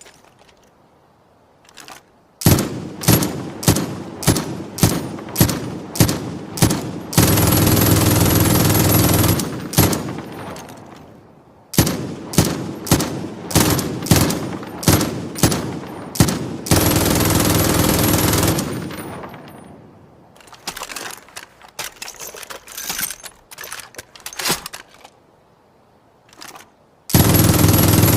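MG-42 machine gun firing: runs of separate shots about two a second alternate with long unbroken bursts at its very fast rate of fire, three such bursts in all, the last one near the end; a stretch of quieter shots comes in the second half.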